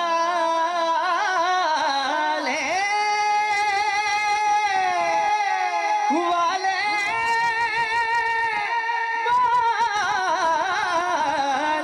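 A man's voice through a microphone singing long, held, ornamented notes in an Urdu devotional kalam, with wavering runs and glides between phrases. He breaks for breath a few times.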